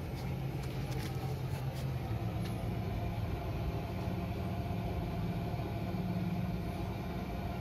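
Steady low hum of an engine or motor running, its pitch shifting slightly about four seconds in.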